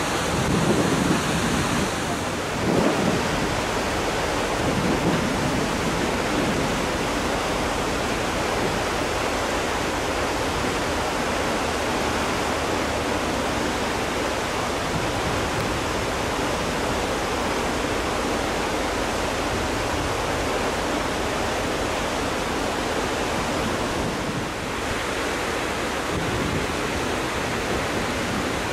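Steady rushing of wind and sea water aboard a ferry under way, with a few louder surges in the first few seconds.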